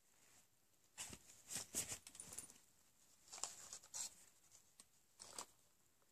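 Items and their plastic packaging being handled: short clicks and rustles in three brief spells, about a second in, near the middle and near the end.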